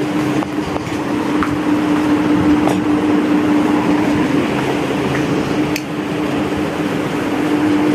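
Steady machine hum with one constant low tone over an even hiss, like a running fan or air-conditioning unit, with a few light clicks and knocks from the phone being carried.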